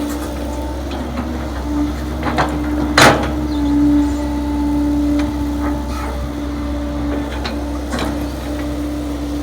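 Kobelco SK135SR excavator running steadily as it digs, a constant engine hum with a steady whining tone, broken by a sharp knock about three seconds in and a few lighter knocks later.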